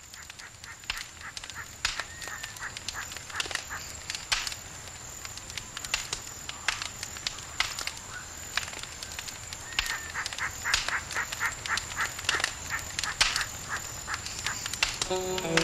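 Birds calling: short, sharp calls repeated irregularly, with a quick run of them about ten seconds in, over a faint steady high whine.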